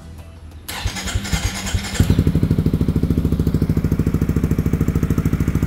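Yamaha XMAX 250 scooter's single-cylinder engine started through a Villan MV1 aftermarket exhaust with its dB killer fitted. The starter cranks for about a second, then the engine catches about two seconds in and settles into a steady, pulsing idle with a mellow, held-back note.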